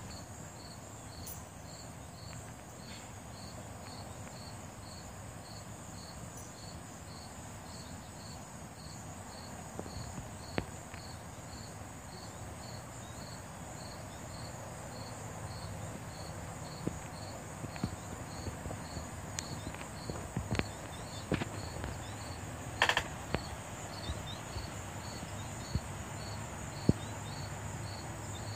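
Insects chirping in a steady rhythm, a short high chirp about twice a second over a continuous high buzz. A few sharp clicks and knocks come in the second half, the loudest about three quarters of the way through.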